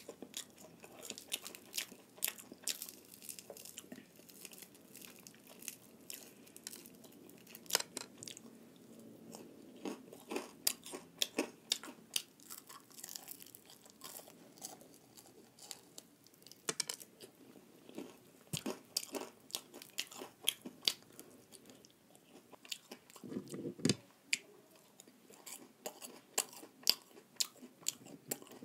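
A person biting and chewing fried chicken on the bone, a steady stream of sharp crunches and clicks from the mouth, with one fuller, deeper bite a little past the two-thirds mark.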